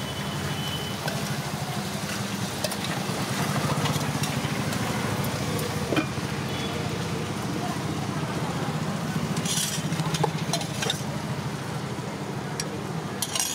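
Appam batter sizzling in a hot pan over a gas burner, under a steady low hum. A steel lid knocks onto the pan about six seconds in, and a few metal utensil clinks follow near the end.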